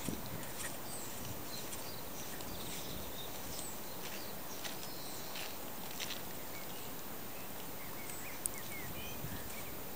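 Outdoor ambience: scattered small bird chirps and short whistled notes over a steady background hiss, with one sharp click about eight and a half seconds in.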